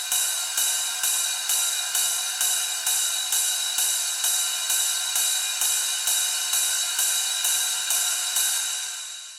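A techno cymbal or hi-hat loop played on its own without kick or bass. Metallic hits repeat a little over twice a second with a ringing tone, then fade out near the end.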